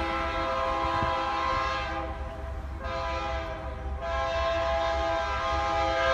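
Lead BNSF freight locomotive's air horn blowing a chord. It sounds long at first, weakens about two seconds in, and comes back full about four seconds in, over a low rumble of the approaching train.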